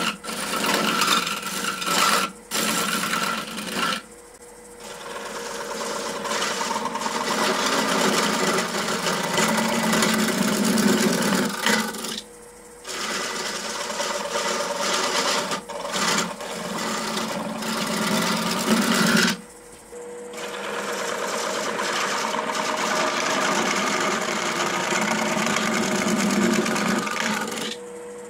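Wood lathe with a gouge cutting into a spinning wooden cube, a steady scraping, hissing cut. It drops off briefly a few times as the tool lifts away and then comes back.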